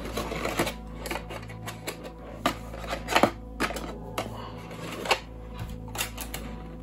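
A plastic board-game card-tray insert and its cards being handled: irregular clicks, taps and light rattles of hard plastic, with sharper knocks about three seconds and five seconds in.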